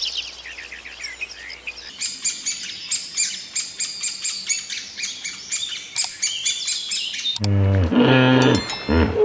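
Birds chirping in quick high trills, then from about two seconds in a louder song of rapid repeated high notes. About seven seconds in, music with a low pitched tone takes over.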